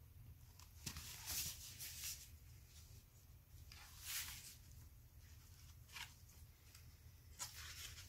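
Faint rustles and swishes of paper as a hardcover picture book is handled and its pages are turned, a handful of short ones spread out over a low steady room hum.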